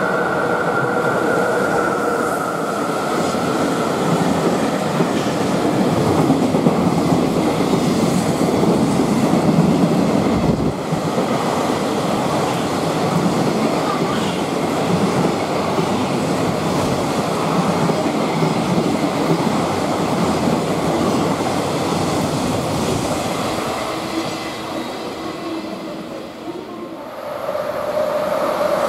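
Electric-hauled container freight train passing through a station at speed, a loud, steady noise of wheels on rail that eases off about 24 seconds in. Near the end a second freight train approaches and the noise rises again.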